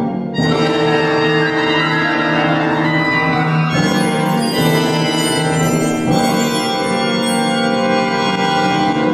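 Symphony orchestra playing loud, sustained chords, the harmony shifting about every two to three seconds.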